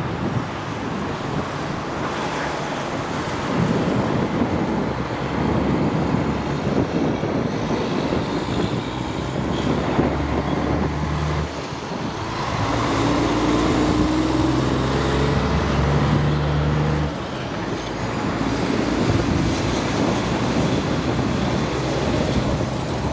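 Isuzu heavy truck's diesel engine running as it drives through, with tyre and road noise. The engine sound changes abruptly twice, about twelve and seventeen seconds in, and near the end a second heavy truck passes close by.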